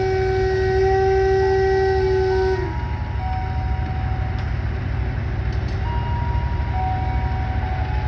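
Vintage locomotive horn holding one long, wheezy note that cuts off about two and a half seconds in, over a steady low rumble.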